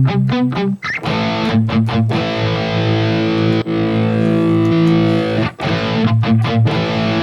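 Electric guitar through a Tube Screamer-style overdrive into a distorted amp, playing a fast chugging palm-muted riff, then two long ringing chords from about a second in, with the chugging riff returning near the end.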